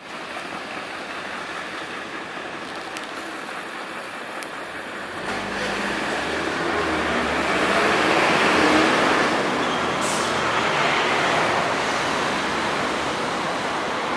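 Road traffic noise: a steady wash of passing cars that swells from about five seconds in as a vehicle with a low engine sound goes by close, loudest around eight to nine seconds.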